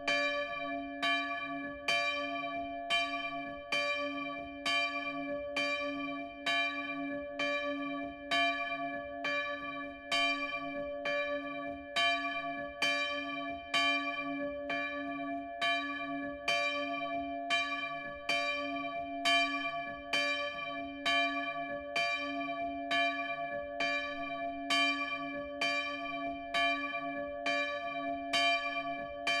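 A single bronze church bell swinging full circle in its tower frame, heard close up. The clapper strikes it in a steady rhythm about every two-thirds of a second, and each stroke rings on over a continuous low hum.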